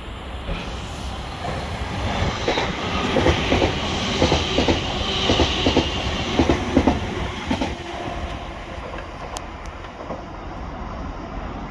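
Electric multiple unit train running along a station platform, its wheels clacking over rail joints in a quick run of clacks over a rushing hiss. The sound builds over the first few seconds, is loudest in the middle and fades after about eight seconds.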